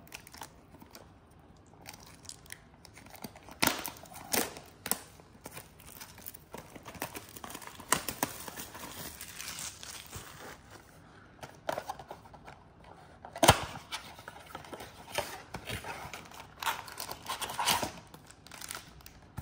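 A cardboard trading-card blaster box being torn open and its foil-wrapped card packs handled: irregular crinkling and tearing, with sharp rips about 4 seconds in and again, loudest, about 13 seconds in.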